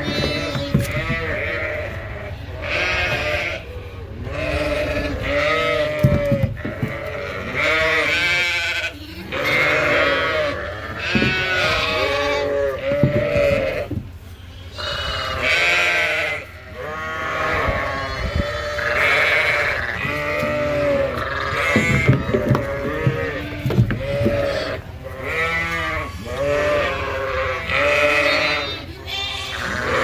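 Many lambs bleating over and over in a crowded pen, their calls overlapping, with a steady low rumble underneath.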